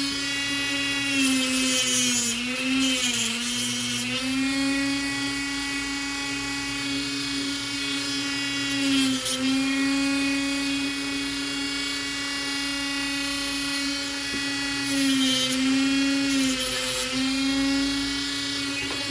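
Dremel rotary tool on a flex shaft, spinning a cutting wheel with a steady high whine. The pitch sags briefly a few times as the wheel is pressed into the plastic scope cap it is cutting.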